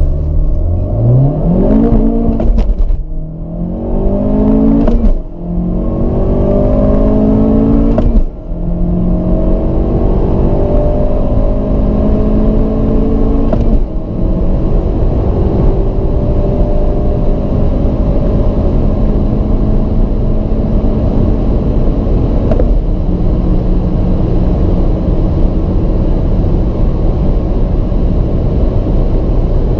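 Honda Civic Type R's turbocharged 2.0-litre four-cylinder engine at full throttle from a standstill. Its note rises through the gears, falling sharply and dipping in loudness at each of five upshifts. The shifts come further apart as the gears lengthen: three quick ones in the first eight seconds, then two long pulls in the higher gears.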